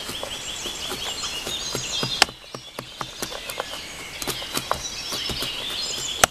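Songbirds singing steadily in woodland, over scattered sharp knocks and snaps of a blade cutting into wood to make shavings and feather sticks. The loudest knock comes about two seconds in, with another near the end.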